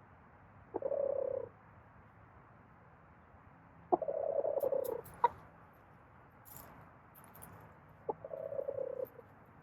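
Backyard hens cooing: three soft, low calls, each under a second, spaced a few seconds apart.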